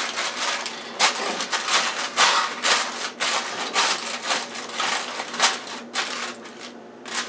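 Aluminum foil crinkling and crackling as it is pressed and crimped down around the rim of a baking pan, in a quick irregular run of rustles.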